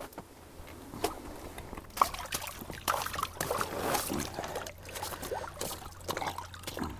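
Water splashing and sloshing in an ice-fishing hole as a hooked lake trout is brought up through it by hand, in irregular splashes and drips starting about a second in.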